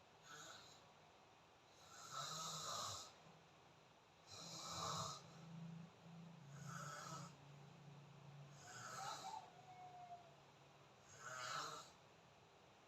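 A person snoring faintly: a raspy snore breath repeats about every two seconds.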